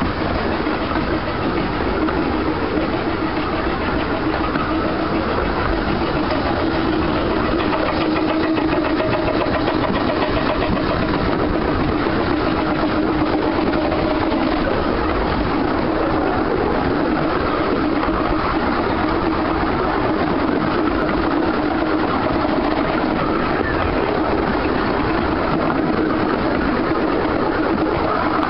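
A 15-inch gauge steam train running along the line: the 2-6-4T tank locomotive working and the carriage wheels on the rails make a steady, loud running noise, heard from an open carriage window.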